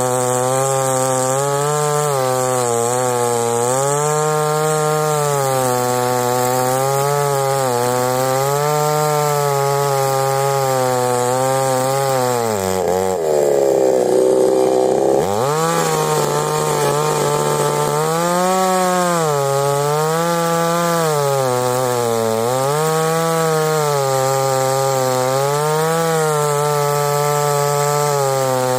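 Gasoline chainsaw on an Alaskan chainsaw mill ripping a log lengthwise into lumber, the engine running steadily under load. Its pitch wavers with the cut and sags sharply about halfway through before climbing back up.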